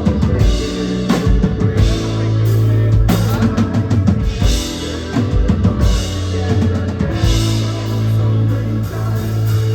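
Live band playing loudly, with a drum kit's kick, snare and cymbals over a sustained bass, the music stopping abruptly near the end.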